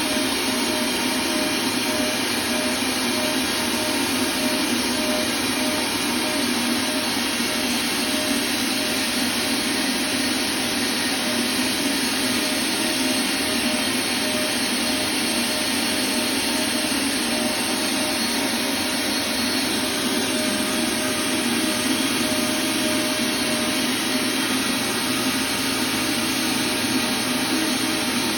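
Hot-air welding gun blowing steadily as a vinyl floor seam is heat-welded, its blower giving a constant hiss with a faint hum.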